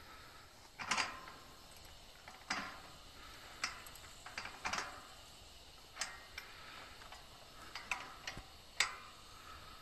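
Irregular sharp metallic clicks and clinks, about eight of them a second or so apart, from a wrench being worked on the bolt of a steel farm gate's upper hinge bracket.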